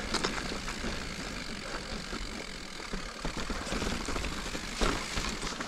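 Giant Reign full-suspension mountain bike rolling along a dirt and rock trail: tyre noise and wind rumbling on the chest-mounted microphone, with scattered knocks and rattles from the bike over bumps. The loudest knock comes near the end.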